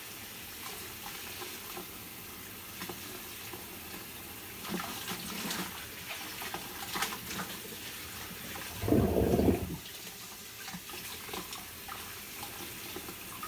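Kitchen tap running into a bowl of paragis grass in a stainless steel sink, with splashing and wet rustling as hands rub and rinse the stems and roots. A loud low thud about nine seconds in lasts about a second.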